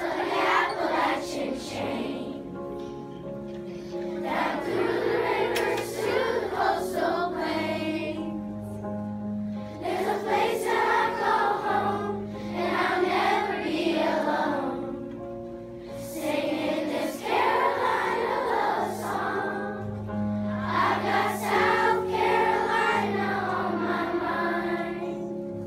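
Children's choir singing in unison, with sustained low accompanying notes under the voices.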